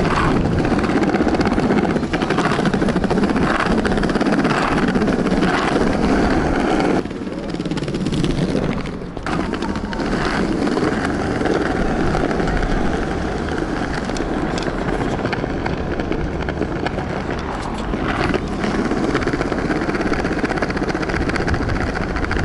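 Skateboard wheels rolling over paving stones, a steady rumble that eases for a couple of seconds about seven seconds in and then picks up again.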